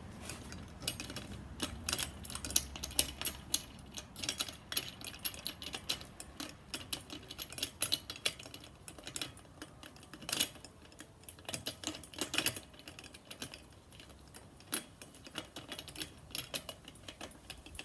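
Irregular metallic clicks and taps from handling bike parts while a BMX front wheel is fitted back into the fork.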